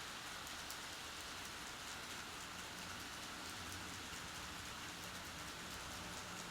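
N-gauge model Shinkansen train running on the track: a steady, even rattling hiss of small wheels on rails, with a faint motor hum in the middle.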